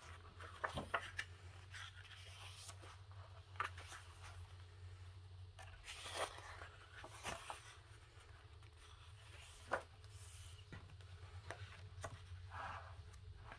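Pages of a paperback coloring book being turned one after another: intermittent paper rustles and soft flicks over a steady low hum.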